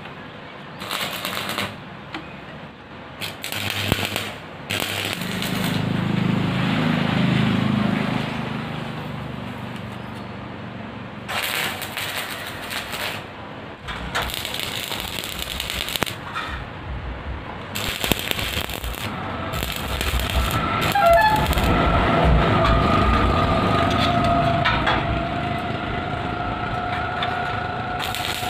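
Arc welding with a stick electrode on a square-tube steel gate frame: the arc crackles and hisses in short bursts of a second or two, stopping and starting as the welds are laid. A low engine-like hum swells and fades about a quarter of the way in, and a steady two-tone whine runs through the second half.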